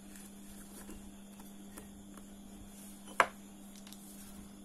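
Faint ticks and scrapes of a thin metal pick working at a spinning reel's spool, with one sharp, loud click a little after three seconds in. A steady low hum runs underneath.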